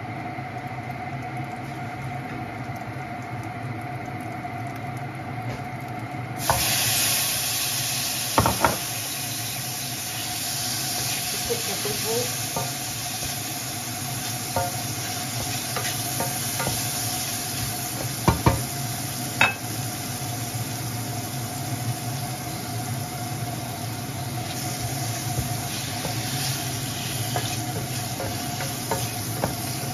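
Tofu sizzling as it is sautéed in a pot; the sizzle starts suddenly about six seconds in as the tofu goes into the hot oil, and is broken by a few sharp clacks of a utensil against the pot. A steady low hum runs underneath.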